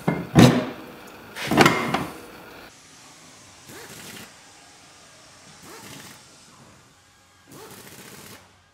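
Two loud metallic knocks in the first two seconds, then three softer clunks: a clutch puller and breaker bar working a snowmobile's primary clutch free where it is pressed onto the crankshaft.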